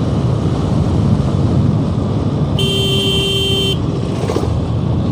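Steady wind rush and engine noise from a moving motorcycle, with a vehicle horn sounding once for about a second about halfway through.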